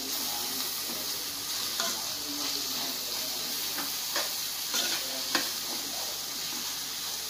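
Bitter gourd pieces sizzling in oil in an aluminium kadai while a metal spoon stirs them, with a steady frying hiss and a few sharp clinks of the spoon against the pan, the loudest about five seconds in.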